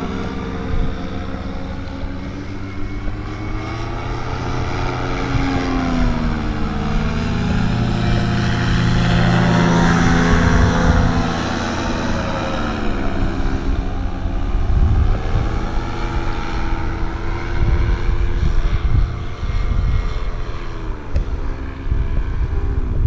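Paramotor engine and propeller droning overhead, its pitch dipping and climbing back twice as the pilot flies past, over a rough low rumble.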